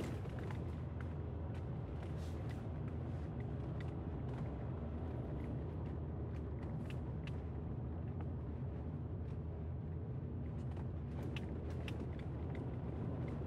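Steady low hum of a car's engine and road noise inside the cabin while driving, with scattered small creaks and clicks.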